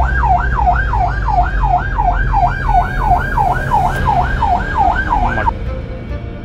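Ambulance siren in fast yelp mode, sweeping up and down about three times a second, cutting off about five and a half seconds in, over the low rumble of a vehicle engine.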